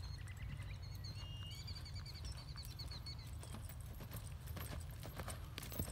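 Hoofbeats of a cantering horse on loose arena dirt, growing stronger and closer in the second half as the horse comes around a barrel, over a low steady rumble.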